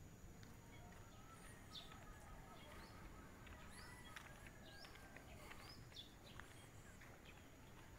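Near silence: quiet outdoor ambience with faint, scattered bird chirps.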